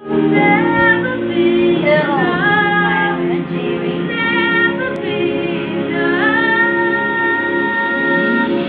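A girl singing a slow ballad solo, with a long slide down in pitch about two seconds in and a scoop up into a long held note from about six seconds on.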